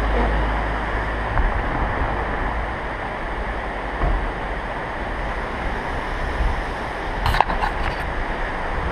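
Steady rushing noise on the camera microphone, with a sharp knock and rubbing about seven seconds in as a hand grips the camera.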